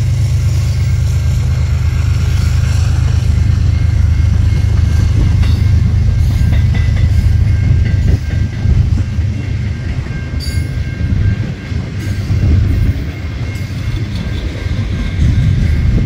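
Freight train of loaded flatcars rolling past close by: a loud, steady low rumble of wheels on rail with a faint high whine over it. After about eight seconds the rumble turns choppier and uneven.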